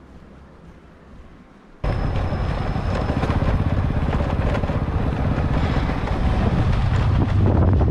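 Faint room hum for about two seconds, then an abrupt switch to loud riding noise: a motorbike engine running, with wind on the microphone.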